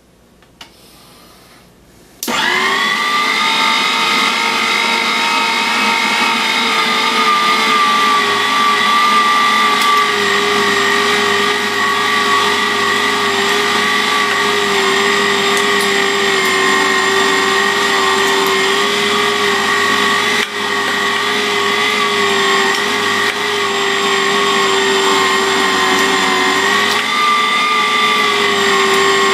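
Electric meat grinder switched on about two seconds in, its motor running loud with a steady whine while pork neck is fed through and ground coarse. The pitch drops slightly a few seconds after the start and lifts briefly near the end.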